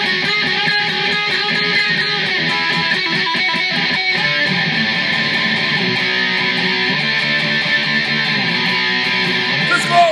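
SG-style solid-body electric guitar playing a hard rock riff in an instrumental passage of a song.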